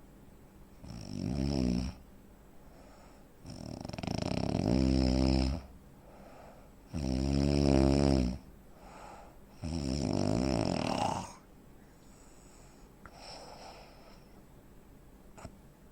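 A man's heavy snoring, of the kind typical of sleep apnea: four loud, buzzing snores about three seconds apart, each lasting a second or two, then only faint, much quieter breaths over the last few seconds.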